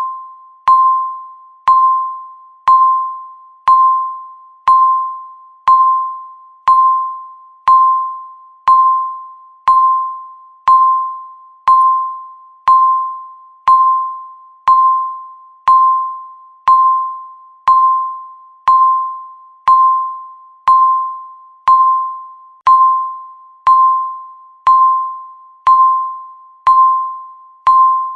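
Countdown timer beeping once every second, each beep a single mid-pitched ding with a sharp start that fades away, the seconds ticking off in a steady even rhythm.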